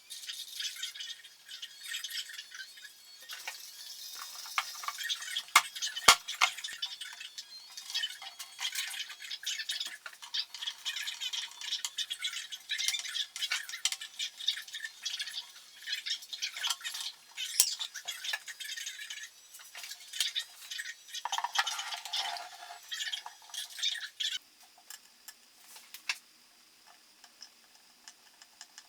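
Small parts being handled and fitted by hand: repeated clicks, knocks and rattles with bouts of scraping, the busiest stretch ending about four-fifths of the way through and leaving only a few light ticks.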